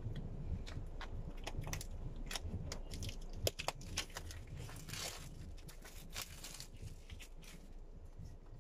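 Plastic shrink wrap being crinkled and torn off a smartphone box: a run of sharp crackles and snaps, with a steady low car-cabin rumble underneath.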